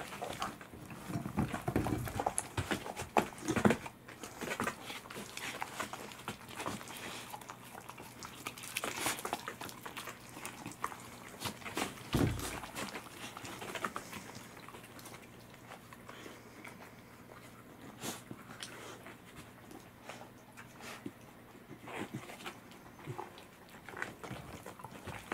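A cat and corgis eating saury: wet chewing and crunching of the fish, with scattered clicks and clinks against a plate, busiest in the first few seconds. A dull thump comes about halfway through.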